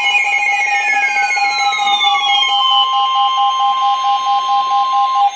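Weather radio alert tones before a severe thunderstorm warning: a loud, rapidly pulsing beep under tones that slide down in pitch, which settle about halfway into a steady NOAA Weather Radio warning alarm tone that cuts off just before the end.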